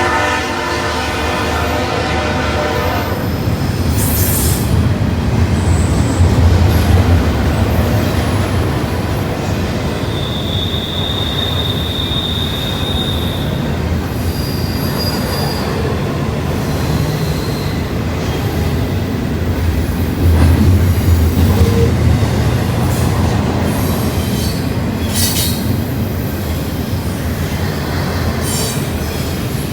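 A CSX intermodal freight train passing close by. The locomotive horn sounds and ends about three seconds in. The cars then roll past with a steady heavy rumble and occasional short, high wheel squeals.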